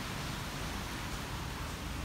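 Steady hiss of rain during a thunderstorm.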